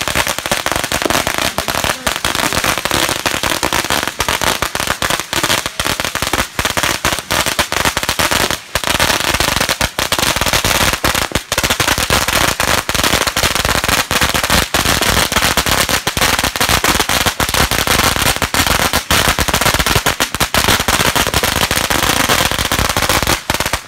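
A long string of firecrackers burning on pavement, cracking in rapid, continuous succession, then stopping abruptly just before the end.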